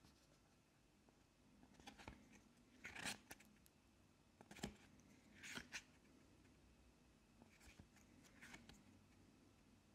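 Soft paper rustles as the pages of a picture booklet are turned by hand, half a dozen short swishes with a small tick in the middle.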